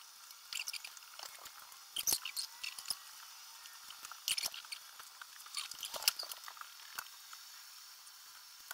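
Light handling noise of coving being pressed and fitted into the wall–ceiling corner: irregular small clicks, scrapes and squeaky rubbing, with a few sharper clicks standing out.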